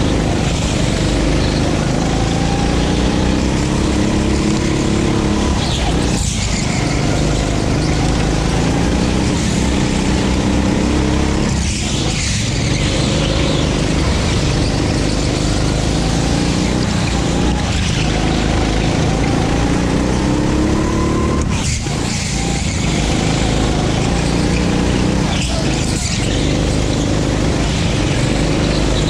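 A 9 hp go-kart engine at racing speed. Its pitch climbs along each straight and falls sharply each time the kart lifts and brakes for a corner, about five times, with a steady rush of wind and tyre noise underneath.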